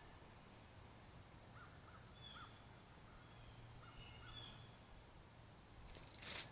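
Faint bird calls: a run of short, repeated call notes in the middle, with a few higher chirps among them. A brief rush of noise comes just before the end and is the loudest sound.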